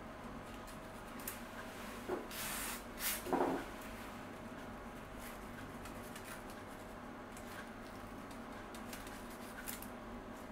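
A blade scraper drawn across the glass of an LCD panel, rubbing off leftover glue in faint strokes. Two or three louder scrapes come between about two and three and a half seconds in.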